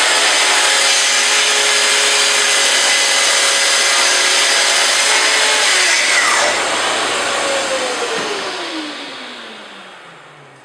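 Festool TS55R plunge-cut track saw, fitted with a rip blade, running at full speed through a 20 mm board along its guide rail. About six seconds in it is switched off and the blade winds down with a falling whine that fades away.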